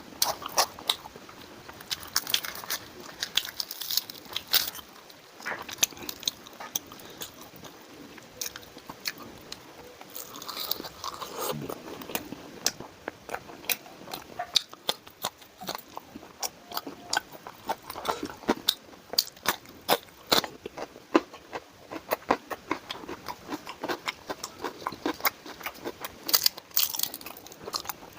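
Close-miked eating: chewing and biting food, with many sharp crunches and wet mouth clicks coming irregularly throughout.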